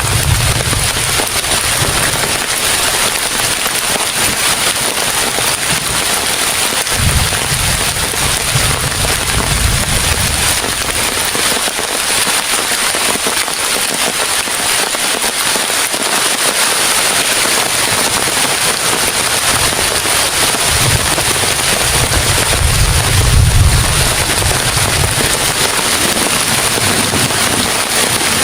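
Heavy rain pouring steadily, a dense crackling patter of drops. Low rumbling gusts of strong wind come several times: at the start, twice in the first third, and again about three-quarters through.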